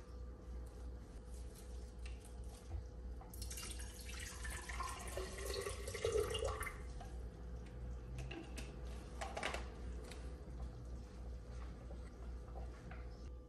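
Water poured from a plastic bottle into a glass vase, running for about three seconds starting a few seconds in, followed by a few fainter handling noises.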